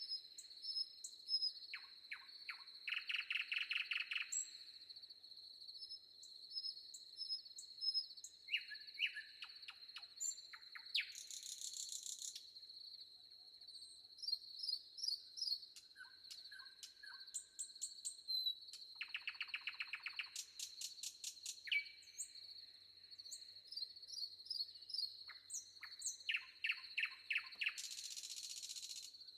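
Forest songbirds calling and singing: buzzy rapid trills, short high whistles and chirps from several birds, over a steady high-pitched insect drone. Two harsher hissing buzzes come about halfway through and near the end.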